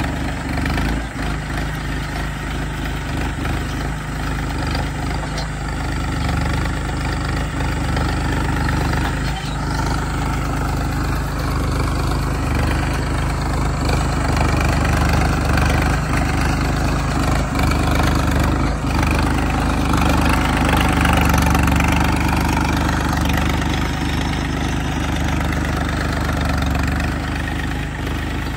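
Farmtrac Champion 41 tractor's diesel engine running steadily under load as it pulls a two-bottom mouldboard plough through dry soil. It grows somewhat louder about two-thirds of the way through.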